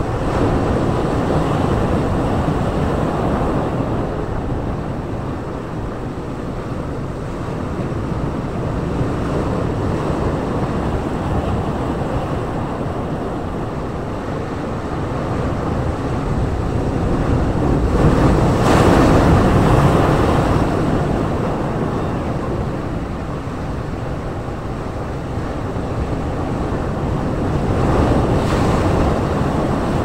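Ocean waves breaking over boulders on a rocky shore: a continuous wash of surf that swells and eases with each set, loudest where a big wave crashes about two-thirds of the way through and again near the end.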